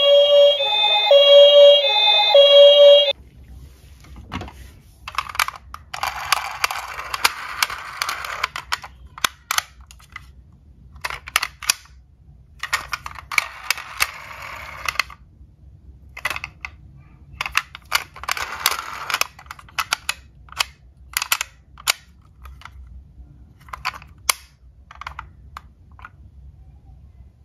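Battery-powered toy ambulance siren sounding an electronic tone that alternates between two pitches, cutting off suddenly about three seconds in. After that come scattered sharp clicks and bouts of rustling as small toy vehicles are handled in a cardboard box.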